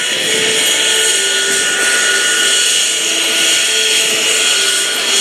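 Aero L-39 Albatros jet taxiing, its single turbofan engine giving a loud, steady high-pitched whine at taxi power.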